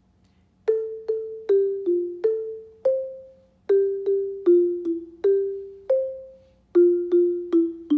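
Alto xylophone played with mallets: a melody of single struck, ringing notes in a steady rhythm. It comes in phrases of six notes, each ending on a higher, longer note, and the strikes begin about a second in.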